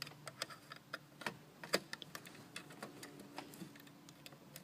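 Irregular small clicks and taps of wires being handled and pushed onto a control board's terminals, a dozen or so clicks at uneven intervals over a faint steady hum.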